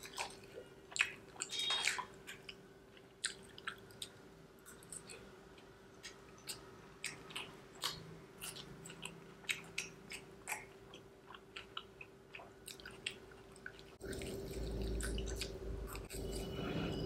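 Close-miked chewing and wet mouth sounds of a person eating momo and Schezwan paneer fried rice, with irregular smacks and clicks over a faint steady hum. About fourteen seconds in a louder low rumbling noise joins in.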